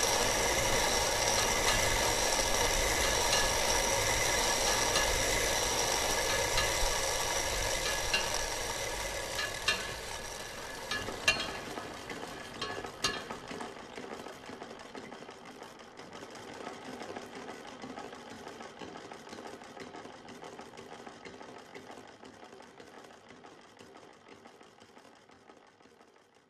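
Hand-cranked ropemaking wheel and reel running with a steady whirring rattle, a few sharp clicks about halfway through, then fading away gradually.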